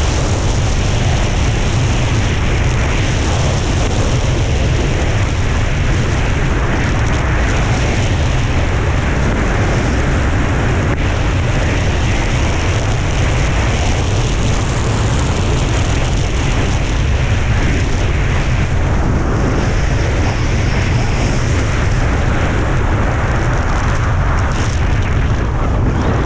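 Loud, steady wind rush buffeting a GoPro's microphone at speed, over the scraping hiss of a snowboard riding on hard snow.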